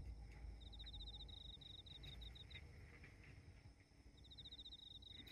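Near silence with a faint, high insect-like chirping in quick trains of pulses that pause and resume; a soft knock right at the start.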